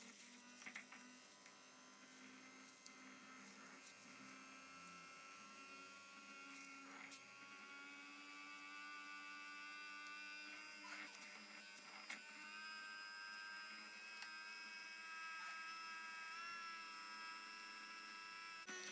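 Faint, steady hum of a Big Boss electric hand blender running, whipping instant coffee, sugar and water into froth.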